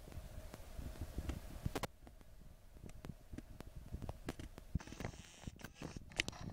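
Faint low rumble inside a moving train carriage with scattered irregular clicks and knocks, and a brief hiss about five seconds in.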